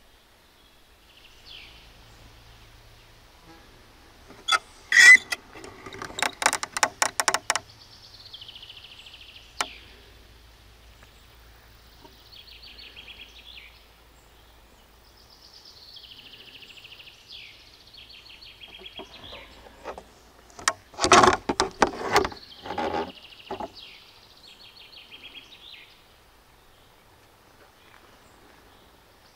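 Small songbirds singing short, high, repeated phrases that fall in pitch. Two loud, close bursts of rapid clicks or knocks come about five seconds in and again about twenty-one seconds in.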